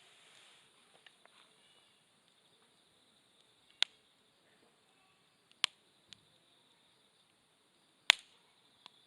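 Campfire wood crackling with a handful of sharp, separate pops, over a steady high chirring of insects.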